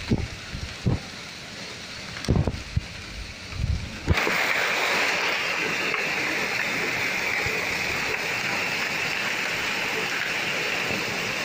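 Heavy rain falling, a dense steady hiss that comes in suddenly about four seconds in and holds. Before it, a few low knocks and thumps.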